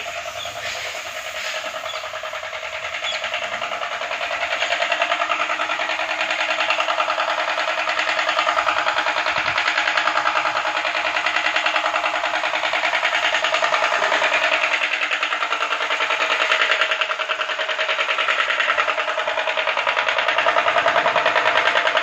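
High-pressure washer pump running steadily: a belt-driven brass plunger pump with a rapid pulsing beat over the drone of its electric motor. It gets louder about four seconds in.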